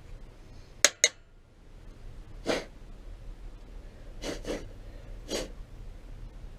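Two sharp clicks about a second in, then four short puffs of breath blown by mouth, made without a blowgun to clear filings from the engine case.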